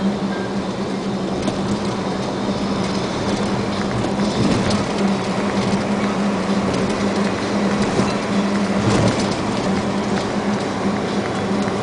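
Steady engine drone and tyre-on-road noise inside a moving vehicle's cab, with two short bumps about four and a half and nine seconds in.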